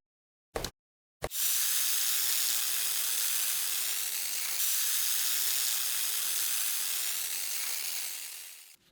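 A few short clicks, then a steady spraying hiss of pressurised air or aerosol that runs for about seven seconds, fades and cuts off just before the end.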